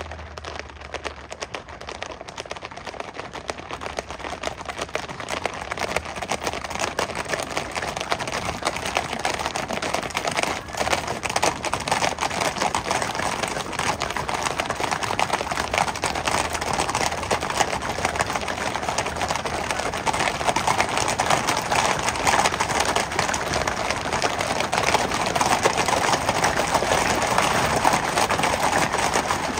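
A herd of loose horses trotting and galloping on a gravel road: a dense, continuous clatter of many hooves that grows louder as the herd comes close and passes.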